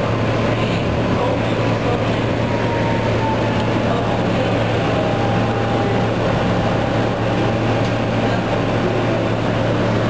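Subway train running along elevated track, heard from inside the car: a steady rumble of wheels on rail with a low motor hum, and a faint thin whine through the first half.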